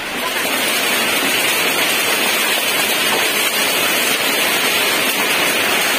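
Heavy rain pouring down: a loud, steady hiss.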